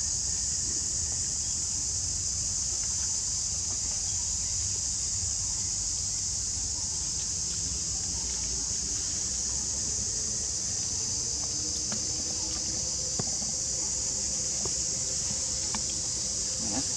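Steady high-pitched insect chorus droning without a break, over a low outdoor rumble.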